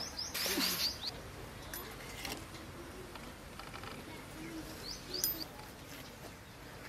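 Birds chirping: a quick run of short, high, rising chirps in the first second and another about five seconds in.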